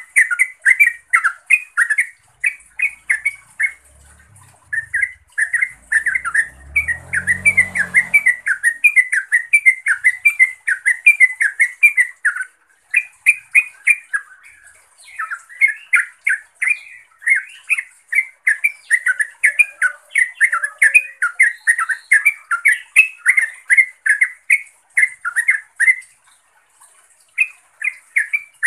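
Yellow-vented bulbul calling in a rapid, chattering run of short notes, broken by a few brief pauses. This is the bulbul's call to rivals or companions.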